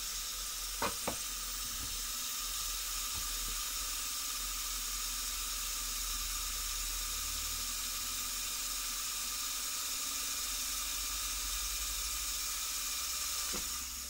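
A steady hiss, with two short clicks about a second in; the hiss dies away near the end.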